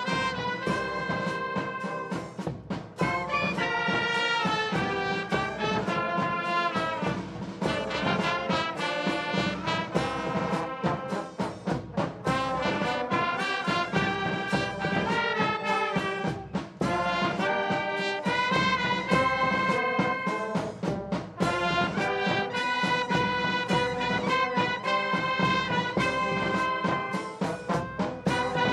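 Brass band music, trumpets and trombones playing a continuous tune.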